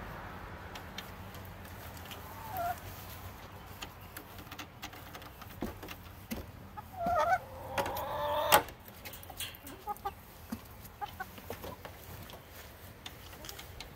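Backyard hens clucking, with a longer, louder run of squawking calls about seven to eight and a half seconds in that ends in a sharp knock. Scattered light clicks run under the calls.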